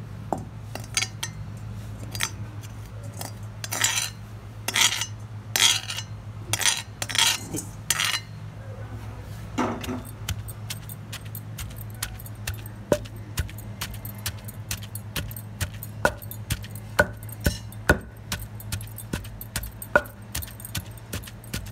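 Mint leaves being pounded in a mortar with a pestle. Starting a few seconds in, louder crushing strokes come about a second apart, then a long series of sharp knocks and clinks. A low hum runs underneath.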